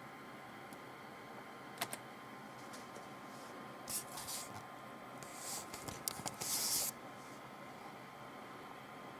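Faint computer keyboard and mouse use: a click, then a few short scratchy rustles and a cluster of clicks over a steady low hum.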